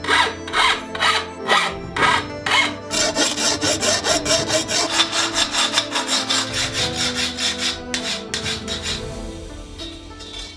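A tool rubbing and scraping against copper sheet in rhythmic strokes, about two a second at first, then faster and denser from about three seconds in, fading near the end. Soft music plays underneath.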